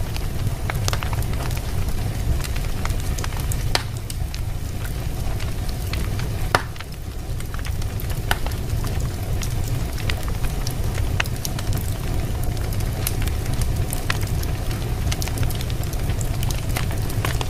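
Wood fire in a fireplace crackling with many short pops over a steady low rumble. One louder pop comes about six and a half seconds in.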